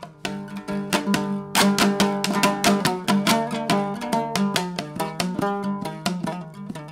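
Background music played on a plucked string instrument: a fast run of picked notes.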